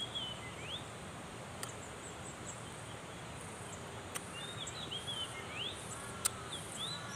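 Small birds chirping in short rising and falling calls over a high insect buzz that pulses on and off, with a few sharp clicks.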